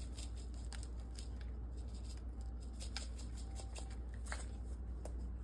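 Faint, scattered clicks and rustles from spice containers being handled as spice rub is added to the mix, over a steady low hum.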